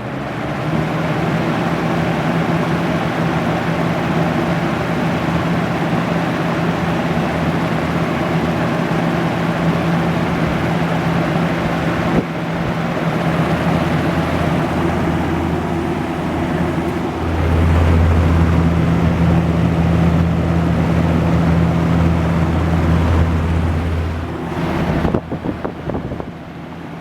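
A 1998–99 Lasko box fan running on high: a steady motor hum under a strong rush of air buffeting the microphone. Partway through, the low rumble grows heavier. Near the end the level drops with a few clicks.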